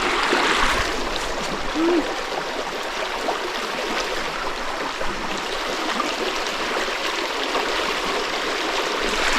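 A river flowing steadily, with a constant rushing, gurgling noise of water over stones.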